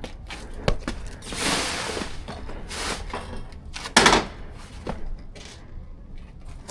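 Handling noises from a motorcycle cover being worked over a parked bike: a few rustling swishes and scattered knocks and clicks, the loudest swish about four seconds in.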